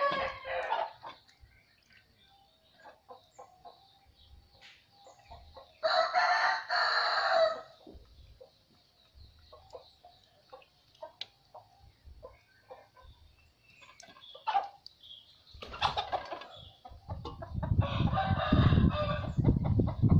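A rooster crowing several times, the clearest crow about six seconds in, with chickens clucking in between. A louder stretch with a low rumble comes near the end.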